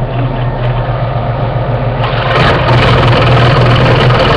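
16-inch scroll saw running with a steady low hum from its motor and reciprocating blade. About two seconds in it gets louder and noisier as the blade starts cutting through a piece of wood.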